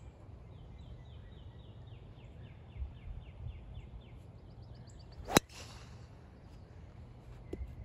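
A golf driver swung on the tee: a short whoosh, then a sharp crack as the clubhead strikes the ball, a little past halfway. Before the swing a bird sings a fast run of repeated chirps.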